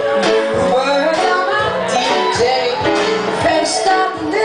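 Live band music with two women singing into microphones over a steady beat.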